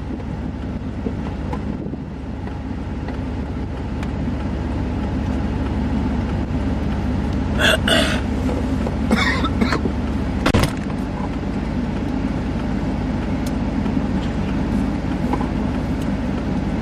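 Vehicle engine idling steadily while parked, with a few brief rustling noises about halfway through and a short knock soon after.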